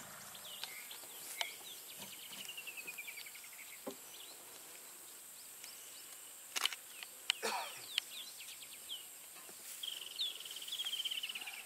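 Bush ambience with birds calling: a bird twice gives a run of rapid high notes falling in pitch, among scattered short chirps. There is a faint steady insect hiss, and a few sharp clicks come near the middle.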